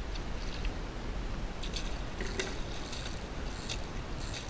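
Spinning reel being cranked to retrieve a lure: irregular short clicks and gear noise from the reel, over a low rumble of wind on the microphone.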